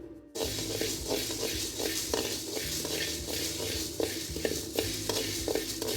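Black peppercorns being dry-roasted in a kadai and stirred: a spatula scrapes and rattles the peppercorns in the pan in repeated strokes over a steady hiss.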